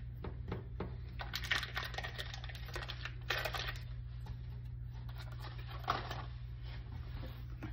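A utensil clinking and scraping against a dish in scattered clusters, over a steady low hum.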